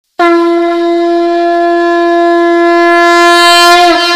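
One long, loud wind-instrument note opening the song. It starts suddenly, holds a single steady pitch for about three and a half seconds, and bends down in pitch near the end.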